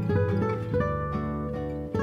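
Background music played on an acoustic guitar: plucked notes and chords, several a second, each ringing on.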